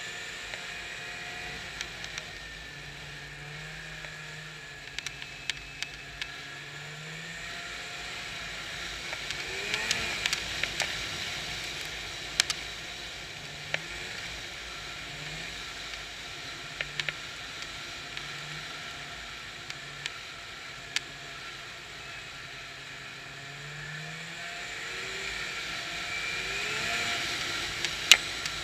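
Snowmobile engine running under way, its pitch rising and falling with the throttle over a steady hiss, with sharp knocks every few seconds. It gets louder twice, about a third of the way in and near the end.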